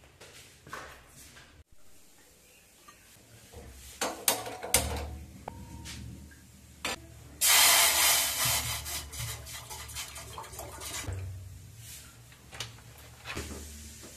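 Water poured from a plastic bottle into a stainless steel saucepan on a gas stove: a loud splashing pour about seven and a half seconds in that trails off. A few knocks and clinks of kitchenware come before it.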